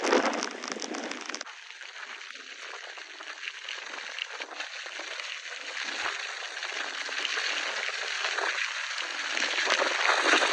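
Tropical-storm wind and rain hissing steadily. About a second and a half in it cuts to storm surf breaking and washing up a beach under wind and rain, growing louder toward the end.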